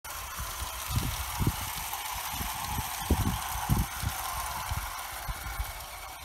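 Bassett-Lowke Enterprise live-steam 0 gauge locomotive running with a steady hiss of steam, its Hornby tinplate goods wagons rattling along the track. Irregular low thumps come through now and then, the loudest a second or so in and around three to four seconds in.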